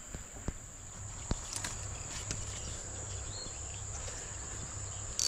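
Insects shrilling in one steady high-pitched tone, with a few faint clicks in the first couple of seconds.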